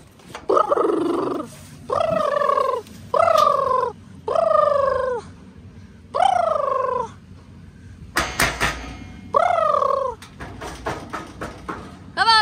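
A lamb bleating repeatedly, about seven calls of under a second each, every one falling in pitch. A burst of knocks and rattling comes about eight seconds in, and a few lighter clicks follow.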